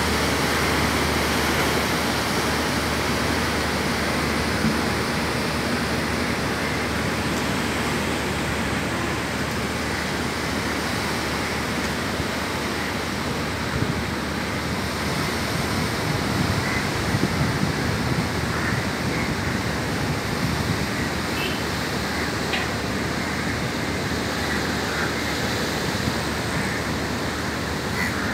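Steady rushing noise of sea surf washing onto a sandy beach below.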